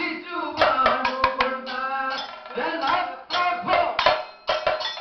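Kathakali accompaniment: vocalists singing the pattu over chenda and maddalam drum strokes.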